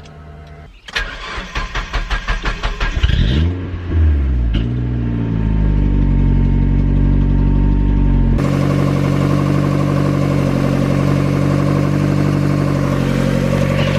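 Turbocharged Mazda MX-5 four-cylinder engine being cranked over by the starter for a couple of seconds, catching about three and a half seconds in with a quick rev flare, then settling into a steady idle. This is its first start-up after the turbo was rebuilt and refitted. About eight seconds in, the running sound turns abruptly louder and fuller.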